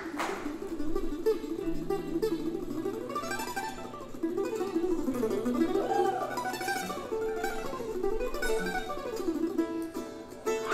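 F-style mandolin picking a quick single-note melody as the tune's opening, with an upright bass holding low notes underneath.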